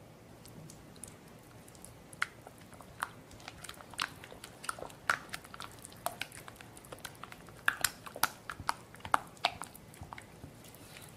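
Silicone spatula stirring thick cheesecake batter and sour cream in a glass bowl: irregular clicks and taps, starting about two seconds in and coming thickest near the end.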